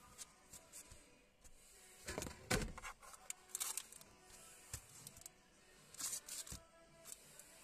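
Packaging handled by hand: a card and a cleaning cloth in a plastic sleeve rustling and tapping, in short bursts, loudest about two seconds in and again around six seconds.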